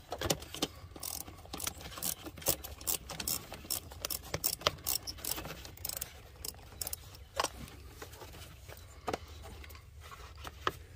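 Socket ratchet clicking in short runs as the air cleaner box's mounting bolt is undone, with scattered metal and plastic clicks and taps from handling the fittings, over a low steady hum.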